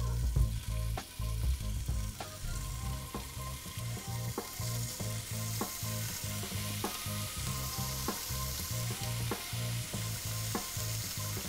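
Burbot chunks sizzling and frying in hot olive oil in a cast iron skillet as pieces are laid in one after another. The sizzle grows louder about four seconds in.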